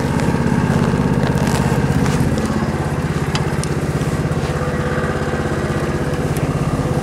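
Harbor Freight Greyhound single-cylinder four-stroke engine on a go-kart running steadily at idle, with a few light clicks over it.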